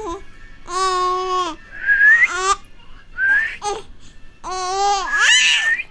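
Baby girl babbling and squealing: drawn-out high "aah" sounds, each broken off by a short sharp squeal that rises in pitch, four times in a row.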